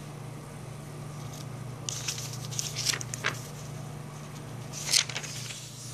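Paper pages of a prayer book being turned by hand: several short rustling page flips, spread across about two to five seconds in, over a steady low hum.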